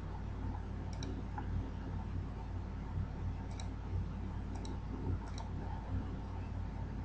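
Computer mouse clicking four times, each click a quick double tick of press and release, over a steady low hum.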